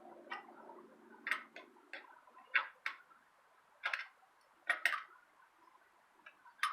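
Irregular sharp clicks and ticks of metal on a bicycle wheel as spokes are loosened by hand during truing, a few clicks a second in uneven clusters.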